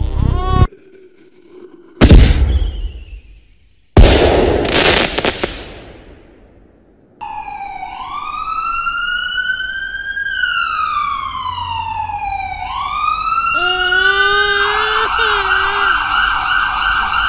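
Sound effects: a sudden hit about two seconds in and a louder crash about four seconds in, each dying away. Then an emergency-vehicle siren wails up and down in slow sweeps, and near the end a lower wavering cry is layered over it.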